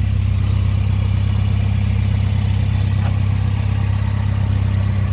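Alfa Romeo 1600 Duetto's twin-cam inline four-cylinder engine idling steadily as it warms up after a cold start.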